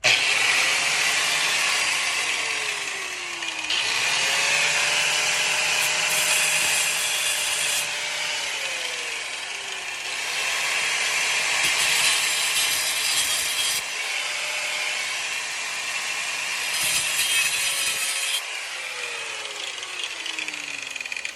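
Power tool cutting into a rusty metal threaded connector, a continuous gritty hiss over a steady motor whine. The motor's pitch sags and recovers three or four times.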